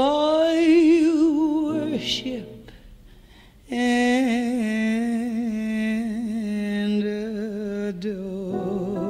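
A female jazz vocalist singing long, sustained notes with a wide vibrato, live. One phrase is held, then there is a short lull about two and a half seconds in, and a second long held note follows.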